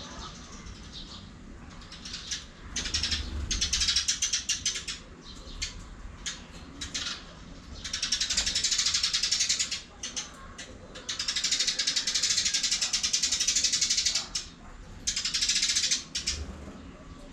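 Cockatiel hissing in repeated raspy bursts, the longest lasting about three seconds: a defensive warning.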